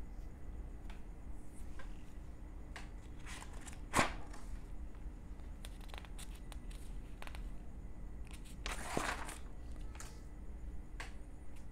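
Paper sheets in a ring binder being turned and handled: a sharp snap about four seconds in, and a longer papery rustle near nine seconds, with small clicks and rustles between.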